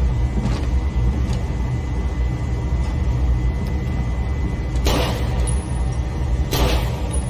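A steady low rumble with a faint high whine throughout, broken by two short bursts of machine pistol fire, the second about a second and a half after the first.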